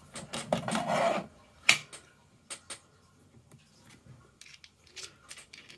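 Clicks and light rattles of a plastic screwdriver bit case being handled, with bits and a ratchet screwdriver lifted out of it. A brief rustle in the first second and a sharp click a little under two seconds in, then scattered faint clicks.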